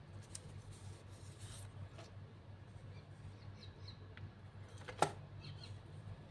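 Faint handling of thin paper strips laid on a craft board: light rustles and small taps, with one sharp click about five seconds in, over a low steady hum.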